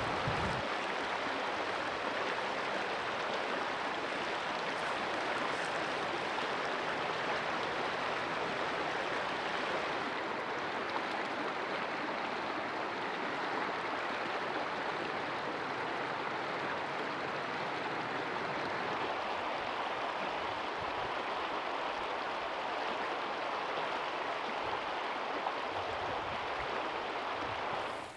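Steady outdoor ambience: an even rushing hiss with no wind rumble beneath it, unchanging throughout.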